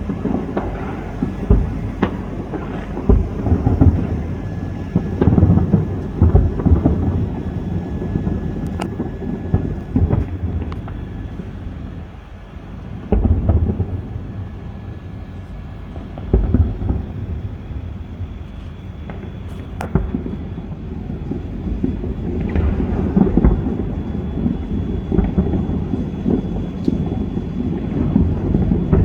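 Fireworks display booming from afar: a near-continuous rumble of overlapping low booms, with sharper bangs standing out every second or two.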